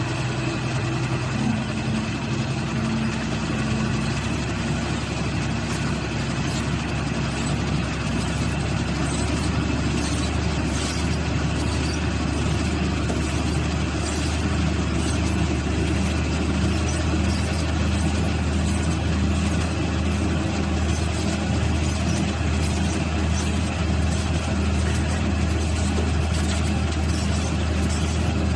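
Engine of a crawler-mounted solar pile driving rig running steadily, a constant low drone.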